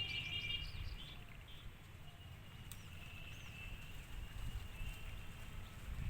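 Rural outdoor ambience: a bird chirps briefly at the start, then a thin, steady high note holds for about three seconds in the middle, over a low rumble.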